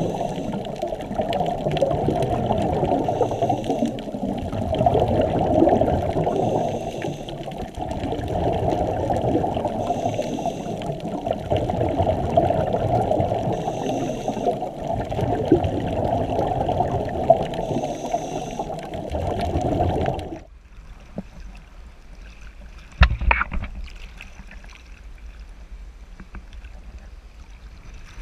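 Muffled underwater sound heard through a camera housing: a scuba regulator's breathing and exhaled bubbles, in a rhythm of about one breath every three and a half seconds. About 20 seconds in it stops abruptly and gives way to quieter water at the surface, with a single thump a few seconds later.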